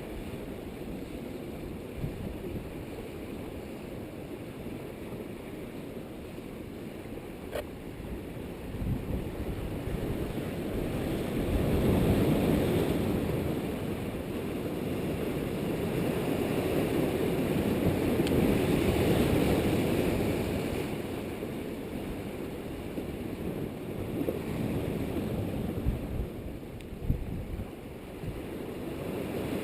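Strong wind buffeting a GoPro Hero 2's microphone as a rumbling rush, swelling louder in gusts a little over a third of the way in and again around two-thirds through.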